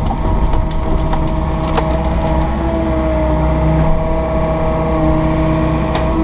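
Diesel engine of an excavator running steadily under hydraulic load, with wood cracking and splintering in short snaps, most of them in the first couple of seconds, as a tree stump is lifted and broken.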